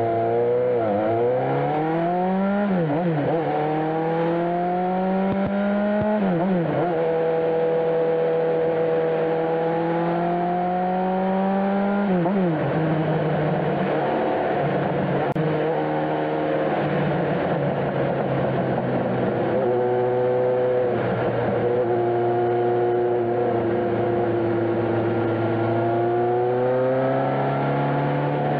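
Motorcycle engine accelerating through the gears, rising in pitch and dropping sharply at three upshifts in the first dozen seconds, then running at a steady cruise with small throttle changes.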